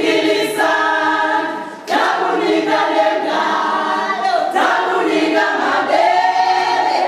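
A group of women singing together without instruments, in sung phrases with short breaks about two seconds and four and a half seconds in.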